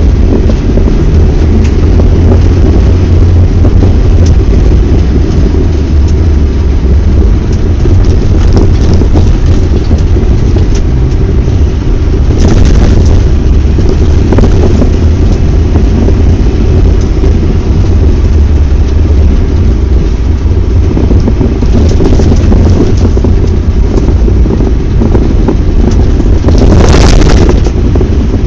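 Cab sound of an Iveco Massif 3.0 HPT turbodiesel driving through snow in 4x2: a loud, steady low rumble of engine and tyres. Two brief, louder rushes of noise break through, about halfway and near the end.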